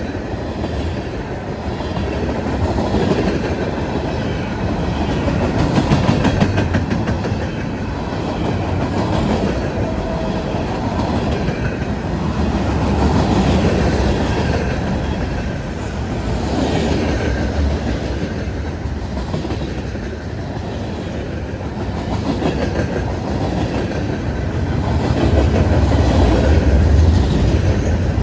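Freight cars of a long CSX manifest train rolling past, wheels clacking over the rail joints over a continuous rumble that swells and eases several times.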